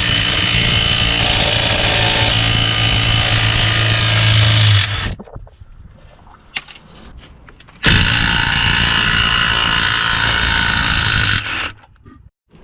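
Cordless impact wrench running in two bursts: it runs for about five seconds and stops, then runs again for about three and a half seconds.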